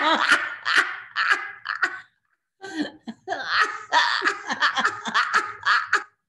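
Two women laughing hard together in rapid bursts. The laughter breaks off for a moment about two seconds in, starts up again, and stops just before the end.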